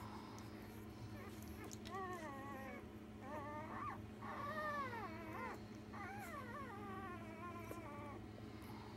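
Three-day-old Rhodesian Ridgeback puppies whimpering in a run of high, rising and falling cries, loudest about halfway through, over a steady low hum.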